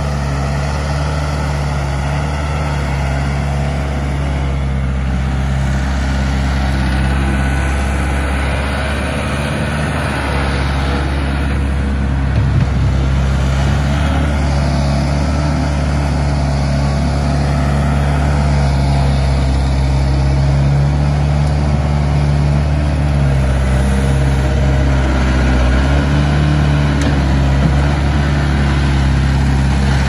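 Case 1845C skid steer's four-cylinder 4BT Cummins diesel running steadily at working speed as the machine drives and carries a loaded bucket, with small changes in engine note as it works.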